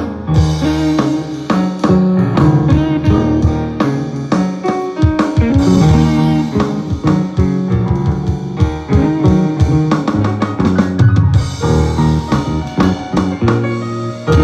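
Rock 'n' roll band playing: a steady drum-kit beat with snare and bass drum under guitar.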